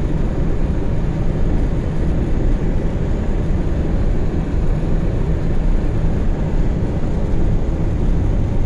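Inside the cabin of a Volkswagen Gol with a CHT 1.6 carbureted engine driving at road speed: a steady low rumble of engine, tyre and wind noise. The engine is not pulling with the throttle down, which the owner puts down to a carburetor problem.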